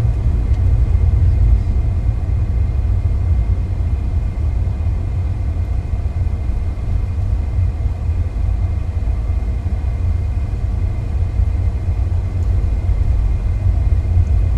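Steady low rumble of a car's road and engine noise heard inside the moving car's cabin, driving on rain-soaked roads.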